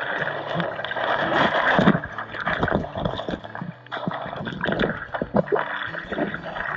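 Creek water heard underwater through a submerged action camera: a muffled, gurgling rush with many small clicks and knocks as a hand touches and scrapes the rocks.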